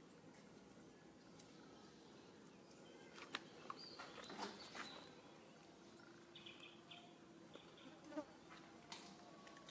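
Quiet outdoor ambience with a faint insect buzzing steadily, a few light clicks and brief bird chirps.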